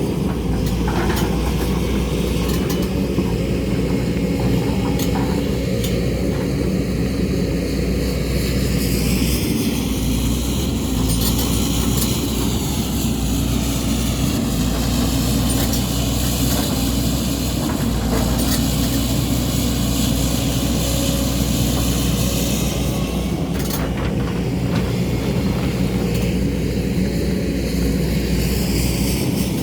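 Excavator's diesel engine running steadily while it digs, with a higher whine that rises and falls in the middle and a few short knocks.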